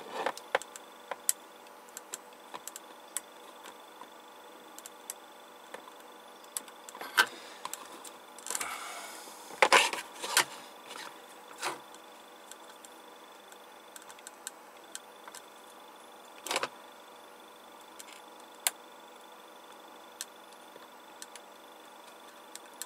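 Small clicks and taps of ESR-meter test probes and clip leads being handled against a circuit board, with a spell of rustling and clicking near the middle and a single louder knock about two-thirds of the way through.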